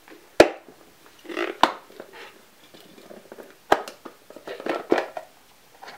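Plastic bento box being opened and handled: three sharp clicks of the plastic lid and box, with rustling of plastic in between.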